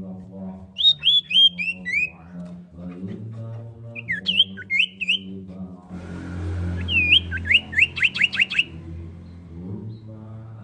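Common iora (cipoh) calling: short clear whistled notes, each falling in pitch, in three bursts. The first is a run of about five notes, the second a few scattered notes, and the third, near the end, a quick series of steep downward sweeps.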